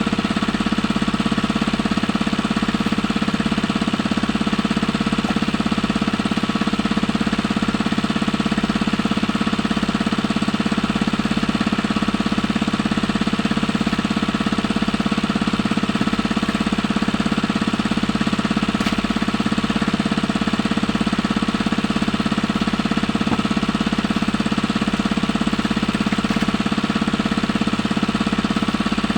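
Small engine running steadily at a constant speed, with an even, knocking beat.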